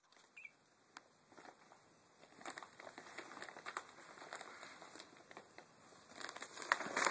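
Blue IKEA polypropylene shopping bag rustling and crinkling as a kitten scrabbles and claws inside it, with many quick scratchy ticks, loudest near the end.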